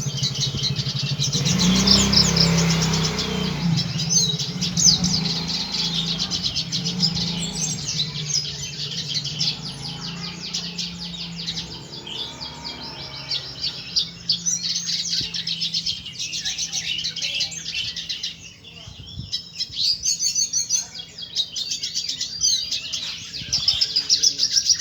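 Red siskin singing without pause: a long run of rapid twittering, trills and chirps.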